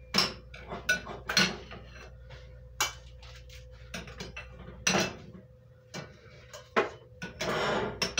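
A serving utensil clinking and scraping against a bowl and a plate as food is dished up: scattered sharp clinks, with a longer scrape near the end.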